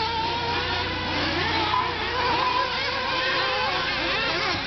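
Several 1/8th scale nitro RC buggy engines racing at once, their high-pitched whines overlapping and rising and falling as the cars accelerate and brake around the track.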